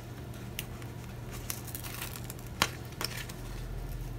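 Hands handling paper sticker sheets on a desk: a few light clicks and taps, the sharpest about two and a half seconds in, over a steady low hum.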